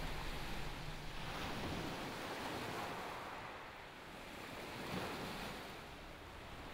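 Sea waves washing onto a pebble shore, a steady rushing noise that swells and eases, loudest about five seconds in.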